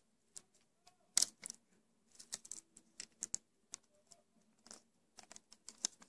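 Self-adhesive aluminium foil tape crinkling in scattered small clicks and crackles as fingers stretch it and press it onto a lure body, the sharpest crackle about a second in.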